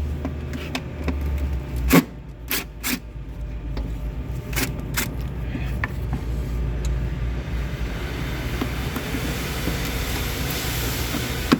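A handful of sharp clicks and knocks, the loudest about two seconds in, over a steady low rumble. From about two-thirds of the way through, a hiss builds up.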